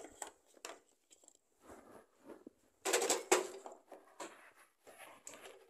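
Things being shifted and handled by hand: scattered knocks and rustling, with a louder rustling burst about three seconds in.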